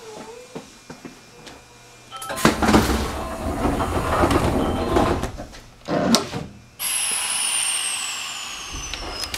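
Train's sliding passenger doors opening with a loud rush of noise about two seconds in, followed by a short knock. Then comes the steady noise of the standing train, with a high whistle that falls slowly in pitch.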